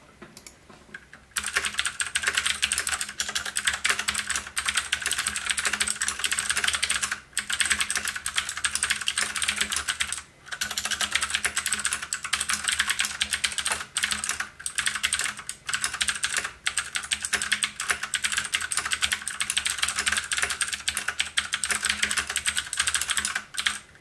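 Fast two-handed typing on an Ajazz K670T wireless mechanical keyboard with blue clicky switches: a dense, continuous stream of key clicks, a much more muted blue switch than most. The typing starts about a second in and pauses briefly a few times.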